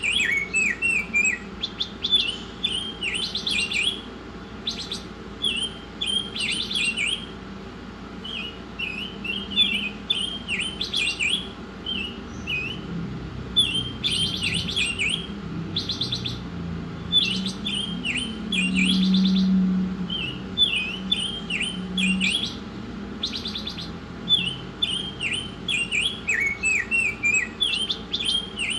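A songbird singing vigorously in repeated quick phrases of short chirps, broken now and then by brief buzzy rattling notes. A low hum swells for a few seconds midway.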